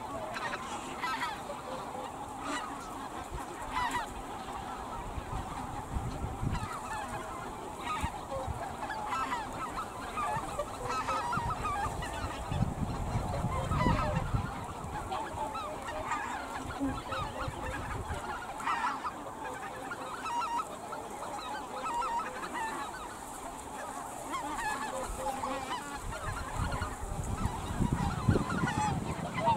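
A flock of snow geese calling continuously: many short, overlapping honks. There is an occasional low rumble underneath.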